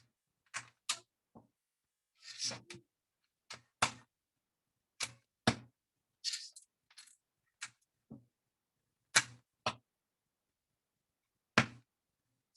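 Lego bricks clicking as 1x4 plastic tiles are pressed onto a plate: irregular sharp clicks, some in quick pairs, with a few short scuffs of pieces being handled.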